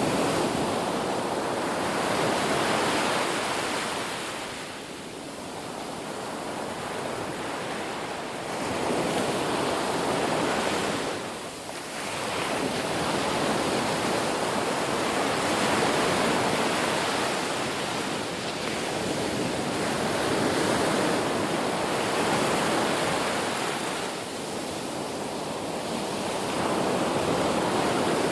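Ocean waves breaking and washing in a steady rush that swells and ebbs every few seconds.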